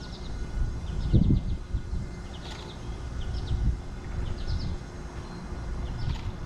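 Small birds chirping in short high groups of a few notes, about once a second, over an uneven low rumble of wind buffeting the microphone that swells about a second in.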